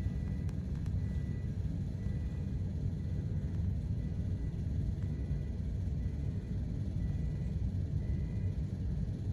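Steady low rumble with a faint short high beep repeating about once a second.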